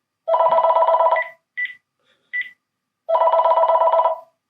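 Panasonic DECT 6.0 cordless handset sounding a sample of its trilling ring twice, each burst about a second long, with two short key beeps between them as the ring adjustment setting is stepped up and down.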